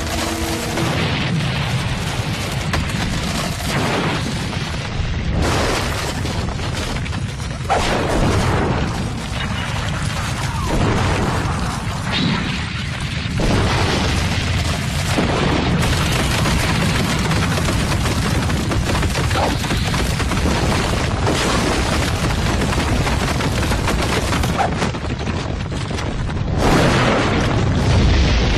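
Cartoon action sound effects: continuous heavy booming and rumbling of crashing, breaking stone, with a louder blast of shattering rock near the end.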